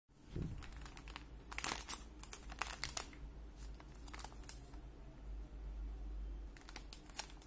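Plastic pouch of Nestlé Everyday milk powder crinkling as it is picked up and turned over in the hand, in scattered clusters of crackle, with a soft knock near the start.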